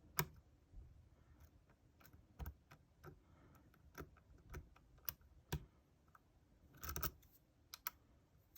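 Faint, irregular metallic clicks of a lock pick and tension wrench working the pin stacks inside a Yale euro cylinder, with a quick cluster of clicks about seven seconds in.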